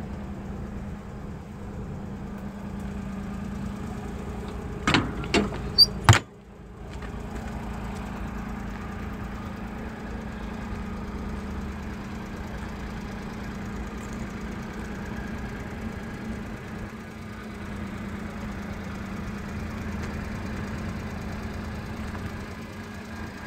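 Daewoo Labo mini truck's small three-cylinder engine idling steadily with a low hum. About five seconds in, a few sharp metallic clanks as the aluminium rear doors of the refrigerated box are swung shut and latched, the last the loudest.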